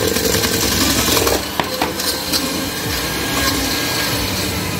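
Electric hand mixer running steadily in stiff-beaten egg whites in a stainless steel bowl as sugar is added, with a few sharp clicks of the beaters against the metal bowl.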